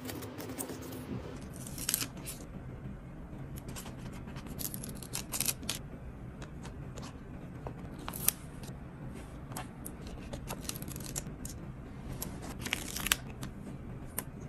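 Stickers being peeled off a clear plastic sticker sheet and pressed onto a plastic envelope: scattered soft crinkles and small crisp peeling ticks, the sharpest about 2, 8 and 13 seconds in.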